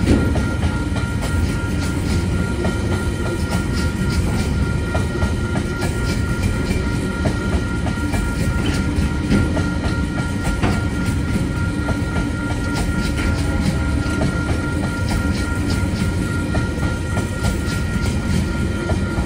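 Tasrail freight train's container wagons rolling past, with a steady low rumble and wheels clicking irregularly over the rail joints.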